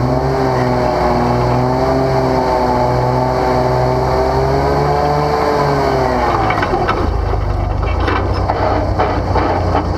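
Off-road vehicle engine running close by, its pitch rising and falling gently. About six and a half seconds in, it turns into a rougher low rumble with scattered clanks.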